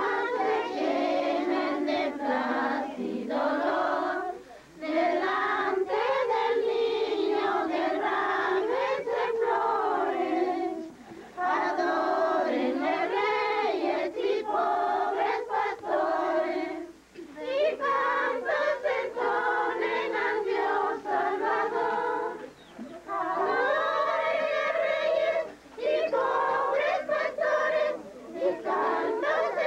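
A group of people singing together without instruments, in long held phrases broken by short pauses for breath.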